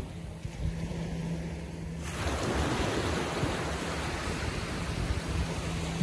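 Small ocean waves breaking gently on a sandy beach in a calm sea. The hiss of surf swells up about two seconds in and runs on as the wave washes up the sand.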